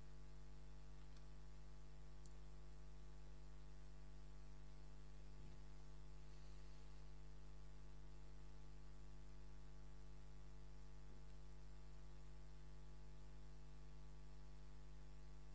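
Steady electrical mains hum with a stack of overtones above it, and a couple of faint clicks.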